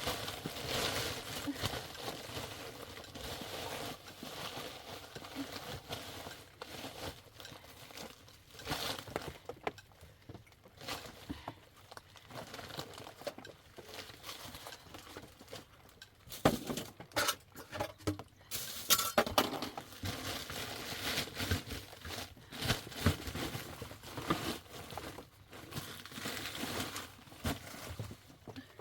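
Irregular crinkling and rustling of things being handled, with scattered knocks and clinks; the sharpest knocks come in a cluster past the middle.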